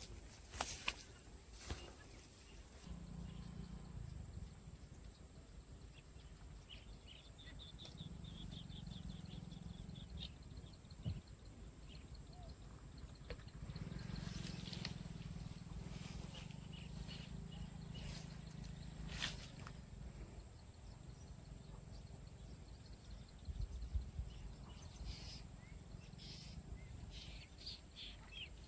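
Faint outdoor ambience: a low hum comes and goes, with a run of high, evenly spaced chirps for a few seconds starting about six seconds in, and scattered clicks.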